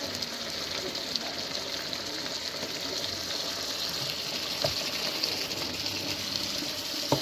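A wide pan of liver stew sizzling with a steady hiss. A wooden spatula knocks against the pan twice, about halfway through and near the end.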